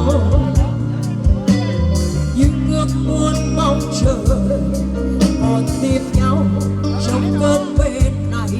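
A woman singing a slow Vietnamese pop song live over a backing track with a steady bass line and drum beat, amplified through a Morgan Sound PA system.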